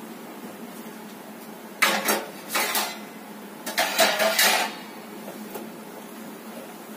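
Steel kitchen utensils clattering in three short bursts, about two seconds, two and a half seconds and four seconds in, over the steady hiss of a lit gas stove burner.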